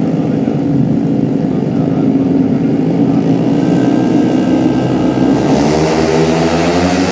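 Tuned 130cc automatic racing scooter engines running at high revs on the track. From about five and a half seconds in, one engine's note stands out clearer and climbs slightly as it comes closer.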